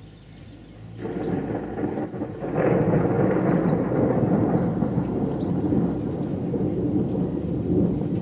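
Thunder rumbling, coming in about a second in and swelling louder a second or two later, then rolling on steadily. Rain falls throughout.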